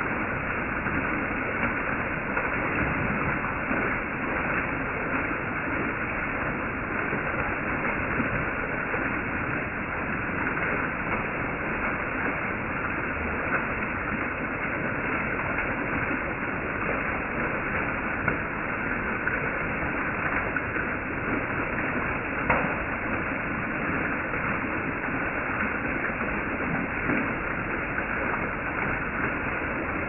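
Small waterfall splashing down a wet rock face: a steady, even rush of falling water, with one faint click about two-thirds of the way through.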